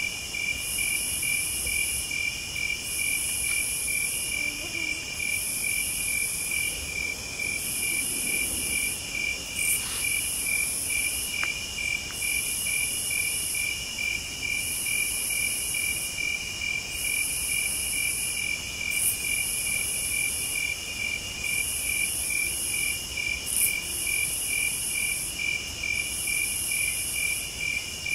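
Crickets and other insects singing in a steady night chorus. A high trill comes in phrases just over a second apart, over a lower chirp pulsing about twice a second.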